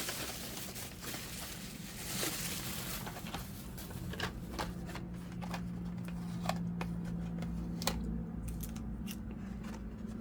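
A package being opened by hand: packaging rustling and crinkling for the first few seconds, then scattered light clicks and taps as the contents are handled, over a faint steady hum.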